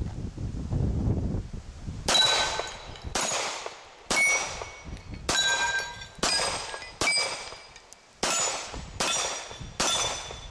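A string of nine gunshots at about one a second, each answered by a steel target plate ringing and fading out.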